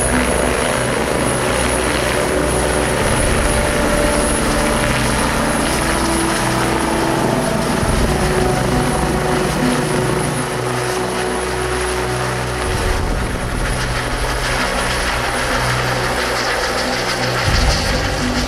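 Eurocopter EC145 twin-turbine helicopter lifting off and climbing away overhead: steady, loud rotor and turbine noise, its tone shifting about ten seconds in.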